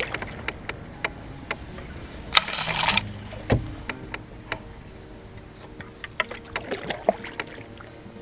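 Canoe being paddled: one stroke swishes through the water just after two seconds in, followed by a knock, with scattered small clicks and drips throughout.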